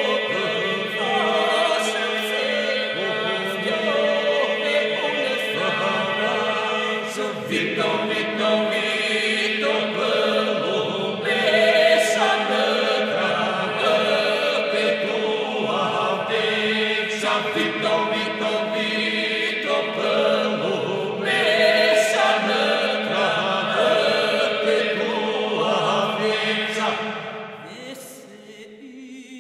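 Background music: voices chanting over a steady held drone note, fading down near the end.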